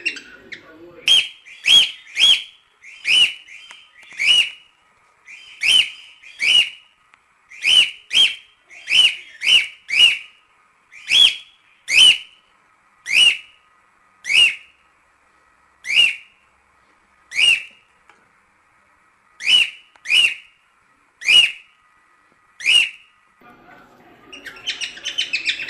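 Cockatiel calling: about two dozen short, sharp, whistled calls, coming in quick runs at first and then more slowly, one every second or two. A busier burst of chattering starts near the end.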